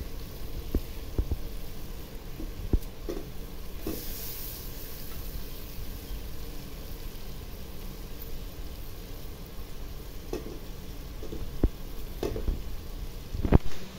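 Food sizzling as it fries in a pot, with scattered clicks and knocks, the loudest near the end.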